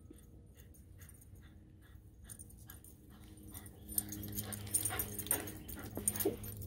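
Old English Sheepdog panting in quick, even breaths after running, much louder once it reaches the microphone about four seconds in, with a brief whimper near the end.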